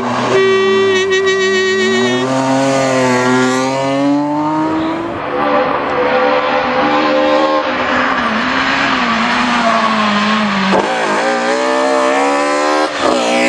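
Rally car engine revving hard, its pitch climbing and falling with throttle and gear changes, with sharp drops about eleven and thirteen seconds in.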